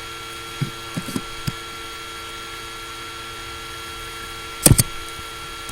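Laptop cooling fan running with a steady whine, picked up by the laptop's built-in microphone. Several light clicks come in the first second and a half, and a louder double click near the end.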